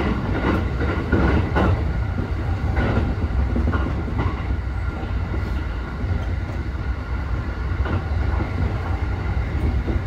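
Commuter train running at reduced speed under a strong-wind restriction, heard from inside the passenger car: a steady rumble of wheels on the track, with a few clicks from rail joints in the first three seconds.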